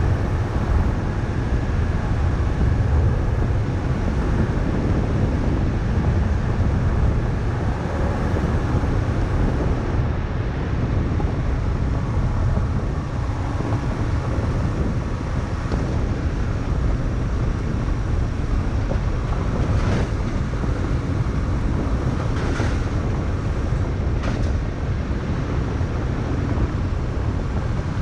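Vehicle driving along a gravel road, heard from an exterior-mounted camera: steady wind buffeting on the microphone over a low tyre rumble, with three sharp ticks late on.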